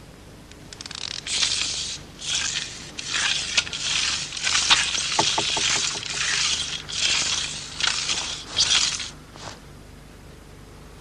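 A run of about a dozen short, rough scraping sounds, coming roughly one a second and stopping about nine seconds in.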